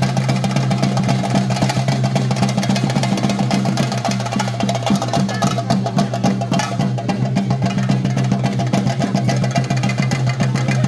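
Chenda drums of a theyyam ensemble beating fast and continuously, with a steady low hum underneath.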